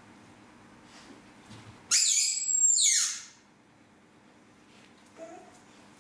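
A dog's rubber squeaky toy squeezed in a dog's jaws, giving one long, high-pitched squeak of about a second and a half, about two seconds in.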